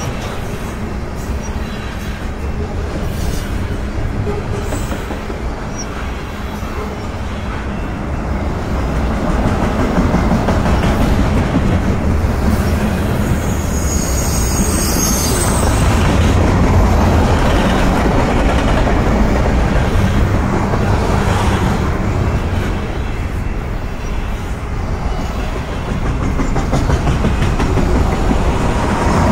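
Freight cars of a mixed manifest train rolling past close by: a steady noise of steel wheels on rail, growing a little louder about ten seconds in.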